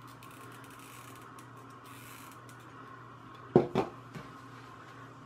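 Faint rustling and crackling from hands working on a small craft piece, then a sharp double knock about three and a half seconds in as a hot glue gun is set down on its mat.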